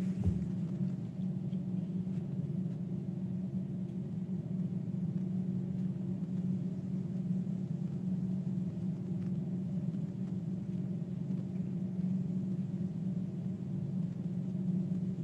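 A steady low hum with a few faint overtones, unchanging throughout, with one brief low thump just after the start.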